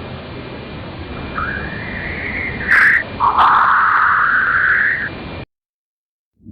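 Voyager plasma-wave recording from Jupiter's magnetosphere played as audio: a steady hiss with rising whistle-like tones, the loudest one in the second half, before the recording cuts off suddenly about five seconds in.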